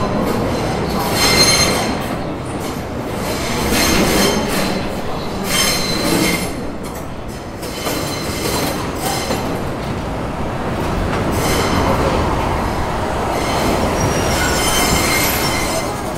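Vintage New York City subway train of R12, R15 and R33 cars pulling into a station over a steady rumble of wheels on rail, its wheels squealing in about five high bursts as it rounds the curve.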